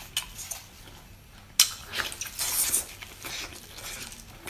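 Wet mouth sounds of a person biting into and eating a chili-sauce-coated octopus: small smacks, then a sharp smack about a second and a half in followed by a short slurping hiss.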